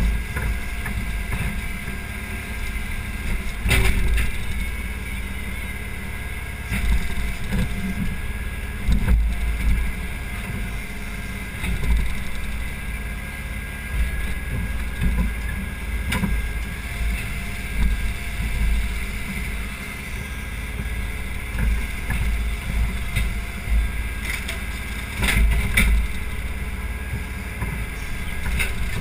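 Case 580 Super M backhoe's four-cylinder diesel engine running, heard from the operator's seat, its level rising and falling as the backhoe arm works. A few sharp knocks come through, about four seconds in and again near the end.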